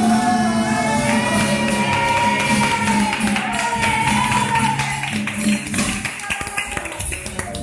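Male flamenco singer holding a long, ornamented line of a fandango over strummed Spanish guitar. The voice dies away about five seconds in, leaving the guitar strumming on its own.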